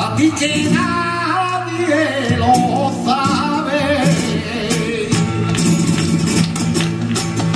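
Live flamenco: a male cantaor sings a long, wavering, ornamented line over acoustic flamenco guitar, with sharp strikes of palmas hand-clapping, thicker in the second half.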